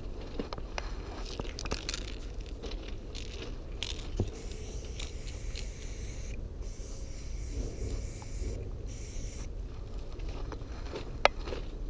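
Aerosol spray paint can hissing in stretches as white highlights are sprayed, stopping and starting with short pauses, among scattered clicks and scrapes of handling; one sharp click near the end.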